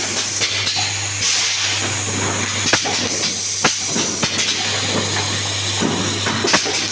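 Automatic confetti filling machine running: a steady hiss of compressed air, swelling about a second in, with irregular sharp clacks of the mechanism over a steady low hum.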